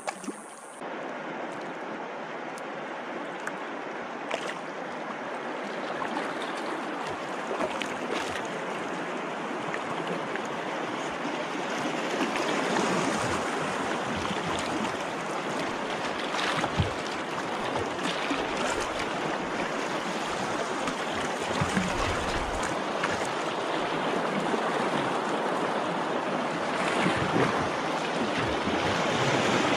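Rushing, splashing water of a shallow river riffle around a kayak, growing steadily louder as the kayak moves into the fast, choppy water.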